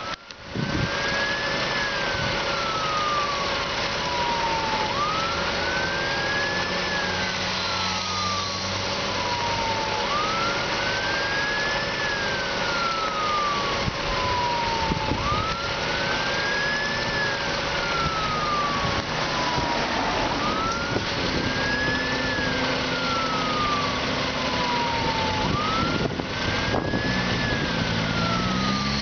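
Volvo fire engine's siren sounding a slow wail: each cycle rises quickly and then falls away more slowly, repeating about every five seconds, over the sound of the truck's engine running.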